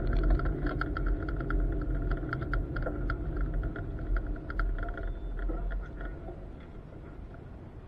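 Subaru rally car's engine running low as the car rolls slowly over gravel, with a run of sharp clicks and crackles over the steady rumble. About six seconds in the car comes to a stop and the sound drops to a quieter idle.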